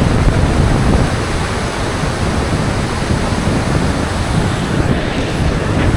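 Steady roar of Iguazú Falls, with wind buffeting the microphone.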